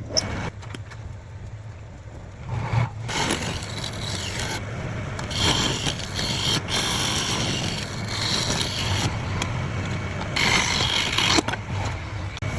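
Wood lathe motor humming steadily while a turning tool scrapes and cuts the spinning wood in several louder passes.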